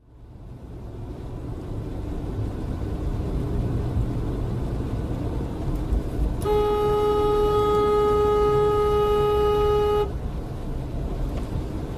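Car horn sounded in one long steady blast of about three and a half seconds, starting about six and a half seconds in, at a car forcing a last-minute lane change. Low road rumble of a car driving in traffic runs underneath.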